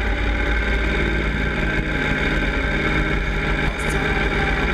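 Yamaha Super Ténéré's parallel-twin engine running at a steady riding speed. Its even drone is mixed with wind and road noise.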